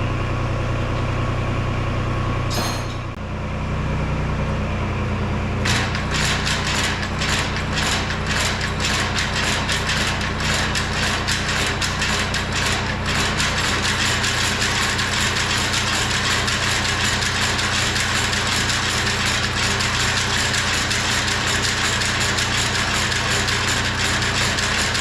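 Mini excavator engine running steadily, its note changing about three seconds in. From about six seconds in, a home-built hydraulic finger-bar mower, driven by a gerotor motor, runs with a fast metallic clattering of its reciprocating cutter bar, with loose parts of the first prototype rattling.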